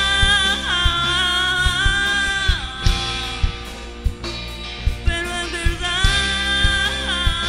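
Live rock band playing: a woman singing over electric guitars, bass and a drum kit, with long held notes that slide down twice, about two and a half seconds in and again near the end.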